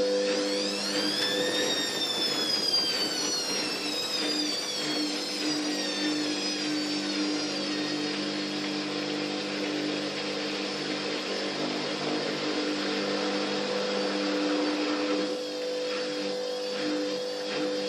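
Fagor washing machine running a towel wash: the drum motor whines up in pitch for about two seconds, then winds slowly down as the drum turns, over a steady machine hum.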